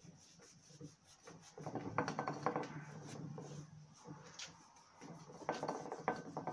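Hands working at the joint of a motorcycle engine's aluminium crankcases, with rubbing and light metallic clicks and scrapes in two spells, about a second and a half in and again about five and a half seconds in.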